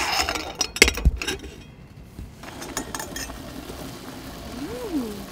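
Metal camping pot lid clinking against the pot as it is hooked and lifted off with a wire lid lifter: a sharp clink at the start and a few more in the first second or so.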